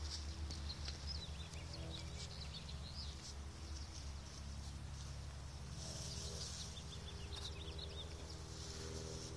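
Small birds chirping in the background, mostly in the first few seconds, over a steady low hum, with brief rustles of long grass about six seconds in and near the end.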